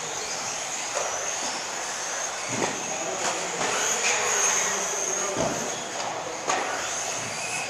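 2WD electric RC buggies with 17.5-turn brushless motors racing: a high motor whine that wavers up and down with throttle. Scattered sharp knocks from the cars hitting the track surface come a few times, the clearest about two and a half and five and a half seconds in.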